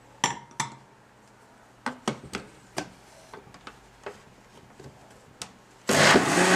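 A few light clicks and knocks as the countertop blender's plastic lid and jar are handled, then about six seconds in the blender switches on and runs loud and steady with a hum, blending a creamy tuna-mayonnaise sauce thinned with broth.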